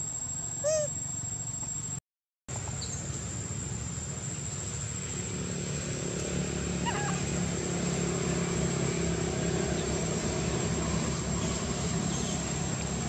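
A young long-tailed macaque gives one short, squeaky rising-and-falling call about a second in, then a few faint chirps around the middle. Under them runs a steady low hum and a thin high whine, and the sound cuts out for half a second near the start.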